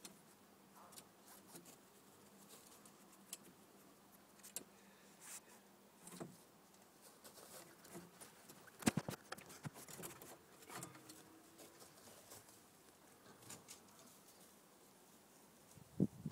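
Ferret jill and her newborn kits stirring in a wood-shavings nest: faint scattered rustles and clicks, the sharpest about nine seconds in, with a few faint squeaks.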